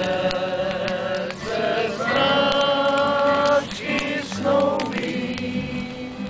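A group of people singing together in slow, long-held notes, with a short pause a little past halfway.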